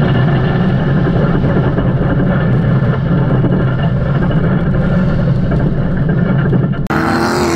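A loud engine running steadily at high load, in the manner of a race vehicle on track. Near the end the sound cuts off abruptly and gives way to a different sound that glides in pitch.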